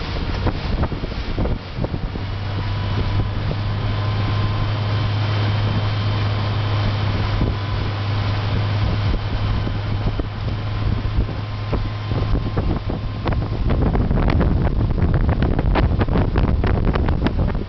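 Motorboat engine running with a steady low hum under heavy wind noise on the microphone. About three-quarters of the way through, the hum gives way to louder, choppy gusts of wind buffeting the microphone.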